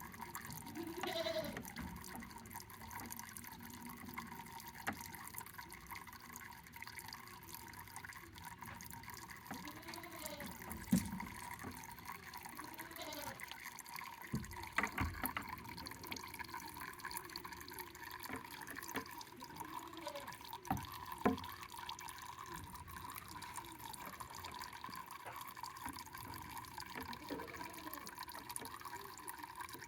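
Water dripping and trickling, with scattered drop sounds and a few sharper knocks.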